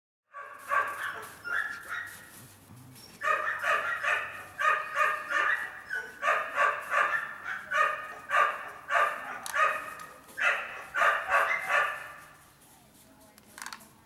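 A dog barking repeatedly in quick runs of short barks, about two to three a second, trailing off near the end.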